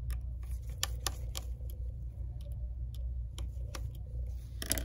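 Light, irregular metallic ticks and clicks of a Y-type (tri-point) screwdriver working the tiny bracket screws inside an iPhone XS, with a small cluster of clicks near the end, over a steady low hum.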